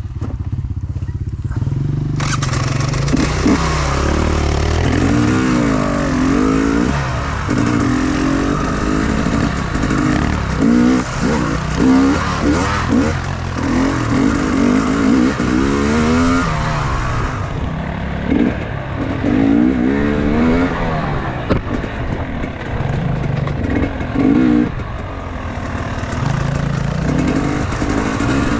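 Enduro motorcycle engine running under way, its pitch rising and falling again and again as the throttle is opened and closed.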